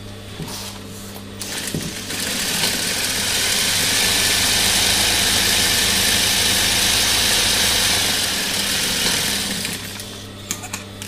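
Industrial sewing machine stitching through fleece for about eight seconds, starting about two seconds in and stopping near the end. Its motor hums steadily underneath throughout.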